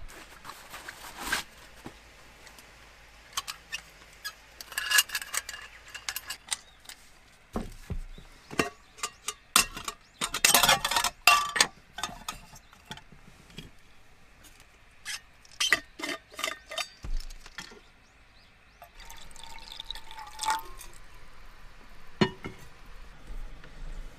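Metal camp gear being handled around a small folding gas stove: irregular clusters of sharp clicks and clinks as its legs and fittings are set up.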